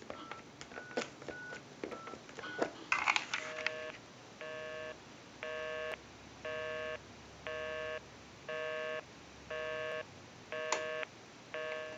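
Touch-tone keypad of a Western Electric glow phone dialed in a quick run of short beeps, then the line's busy signal heard from the handset earpiece: a low two-tone buzz switching on and off about once a second, because the number called is in use.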